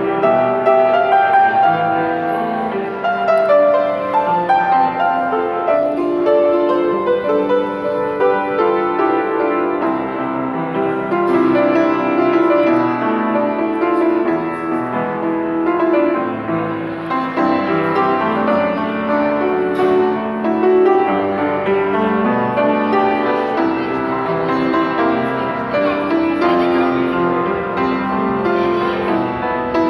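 Upright piano played with both hands: a continuous flowing piece of many quick notes, at an even level with no pauses.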